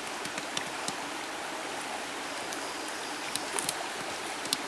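Shallow creek flowing steadily, an even rushing hiss of water, with a few scattered sharp ticks over it.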